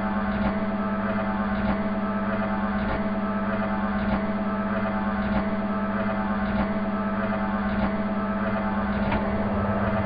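Steady machine-like hum with a strong low tone and a weaker higher tone, and a faint tick repeating a little slower than once a second.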